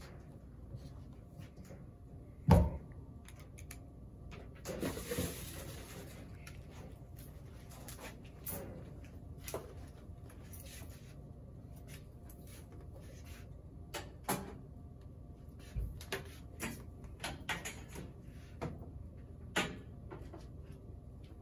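Scattered knocks and clicks of a door and objects being handled in a small room. One sharp knock about two and a half seconds in is the loudest, with a brief rustle a couple of seconds later.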